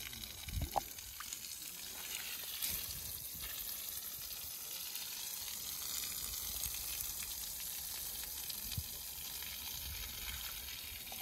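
A hose spraying a jet of water over freshly poured concrete blinding, a steady hiss of spray falling on the wet surface, wetting the fresh concrete to keep it moist while it cures.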